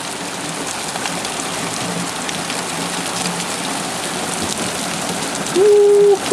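Heavy rain and hailstones pelting down: a steady hiss scattered with small sharp ticks of hail striking. Near the end a short, steady pitched tone sounds for about two thirds of a second, louder than the downpour.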